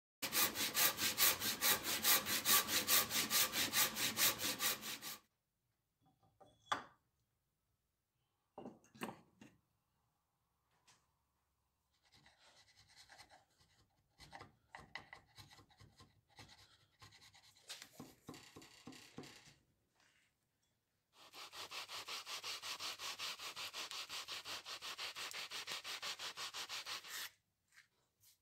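Hand tools working a wooden block: a run of rapid, even back-and-forth scraping strokes, then a chisel paring and chipping the wood in short scrapes and taps, then another long run of steady scraping strokes.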